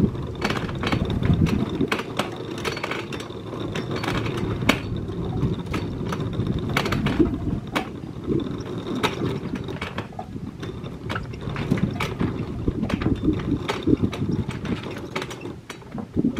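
A sailboat's anchor chain and gear being worked at the bow: irregular metal clicks, clanks and rattles, many per second at times, over a steady rush of wind and water.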